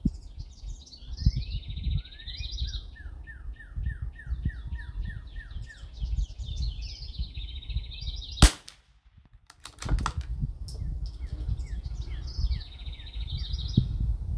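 A single .22 LR rifle shot from an Anschutz 1761 bolt-action, a sharp crack about two-thirds of the way in, over a songbird singing repeated trilled phrases and wind rumbling on the microphone. A few faint clicks follow the shot.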